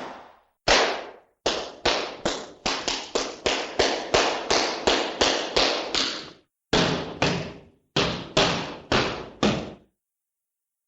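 A run of sharp knocks, each ringing briefly. The first few are spaced out, then they quicken to about four a second, ease off a little and stop near the end.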